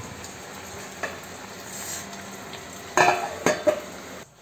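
Fish curry sizzling steadily in a pan on a gas stove, with a single light utensil click about a second in. Near the end a steel pan lid clanks against the cookware three times and rings briefly.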